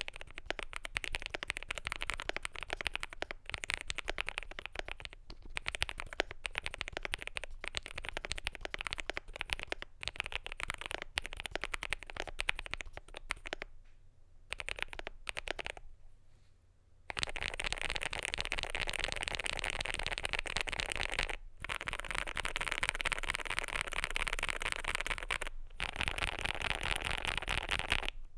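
Continuous fast typing on a CIDOO V65 mechanical keyboard with lubed Quake Matte linear switches, a polycarbonate plate and PBT keycaps. The keystrokes run as a rapid stream of soft clacks. There is a short pause about halfway through, followed by faster, denser typing.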